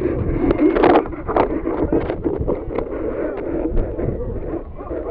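Wind rushing over the microphone of the camera riding on a just-launched high-altitude balloon's payload, with a few sharp knocks.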